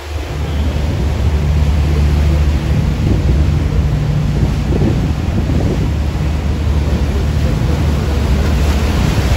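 Loud wind buffeting the microphone aboard a moving tour boat, over the steady low drone of the boat's engine.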